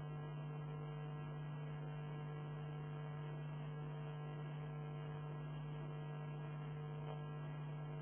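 Steady low electrical mains hum with a few fainter higher tones above it, unchanging throughout.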